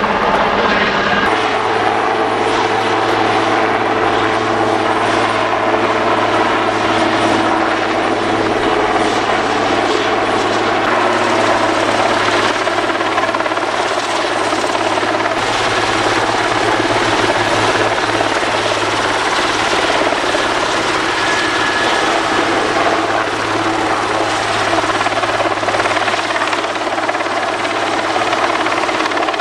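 Super Puma helicopter hovering low, its rotor and turbines running with a steady, loud drone and a thin high whine, while a rescue swimmer is winched down from it.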